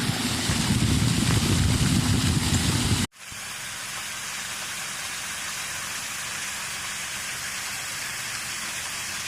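Outdoor noise with no clear source: a loud, rumbling hiss for about three seconds, cut off abruptly and followed by a quieter, even hiss.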